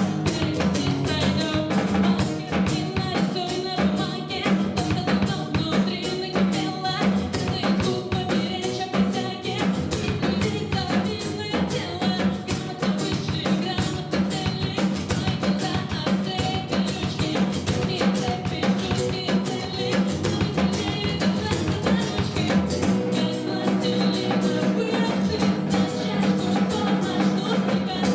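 A song played live on a drum kit and guitar, with a woman singing.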